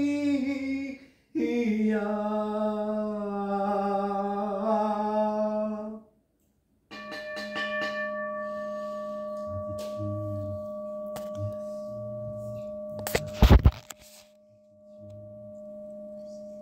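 A man's voice chanting, ending in a long held note about six seconds in. After a short pause a singing bowl rings with several steady tones, struck or rubbed with a wooden stick; a loud knock comes about thirteen seconds in, the loudest sound here, and the bowl's tone rings on more faintly after it.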